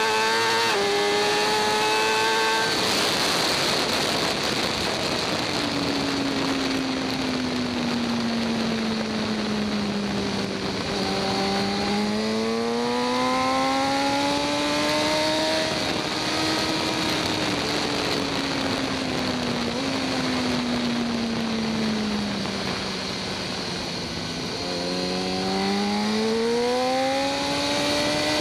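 Stock 2014 BMW S1000RR inline-four engine heard onboard at racing speed: it shifts up through the gears in the first few seconds, then its pitch falls and rises twice through the corners, with a quick step down near the middle of the second fall. A loud rush of wind noise sits over the engine from about three seconds in.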